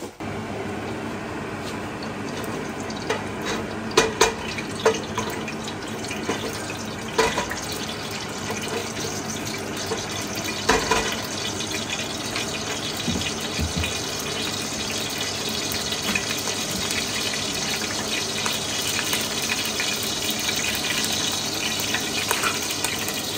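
Whole spices sizzling steadily in hot oil in a stainless steel pot, the frying for a curry base. A few sharp knocks come in the first half.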